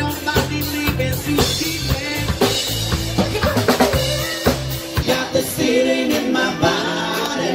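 Live band playing: drum kit with snare and bass drum, bass guitar and keyboards, the singer on microphone. About five seconds in the bass drops out and several voices sing together over the drums.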